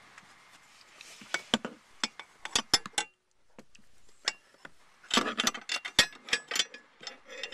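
Steel seat-extender bracket clinking and clicking against the seat's metal mounting bracket as it is handled into place. The sharp metallic clicks come in two clusters, one starting about a second in and a denser one about five seconds in.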